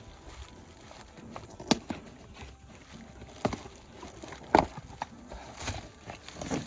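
Handling clatter from new brake pads and their packaging: a handful of irregular clicks and knocks, the loudest about four and a half seconds in.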